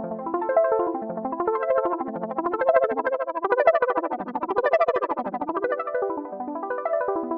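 Ableton Drift software synthesizer preset playing a fast stream of short, keyboard-like notes that step up and down in pitch, brightening in the middle.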